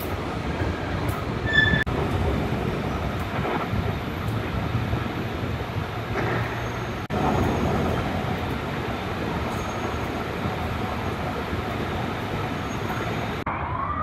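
Steady rumble and hiss of a large transit hall, with a brief break about seven seconds in. Near the end it cuts to a siren starting to wail.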